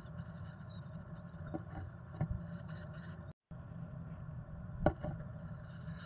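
Steady low hum and hiss of a nest-box camera microphone, with a few soft knocks and scrapes as the chickadee parent shifts on the wooden box and moss nest, the loudest about five seconds in. Faint high peeping of begging chickadee nestlings sits under it, and the sound drops out for a moment past the midpoint.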